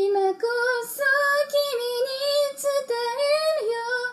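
A woman singing a Japanese pop song's melody, moving between long held notes.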